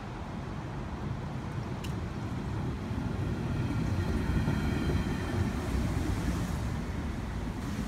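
Amtrak Cascades Talgo trainset and its diesel locomotive passing close by: a low rumble of engine and wheels on rail that builds as the locomotive comes level about four seconds in, with a faint high whine over it, then the coaches rolling past.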